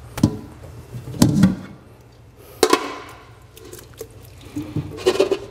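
Stainless steel cookware being handled at a kitchen sink: several sharp metal knocks and clanks, some ringing briefly, with some water sounds from the sink.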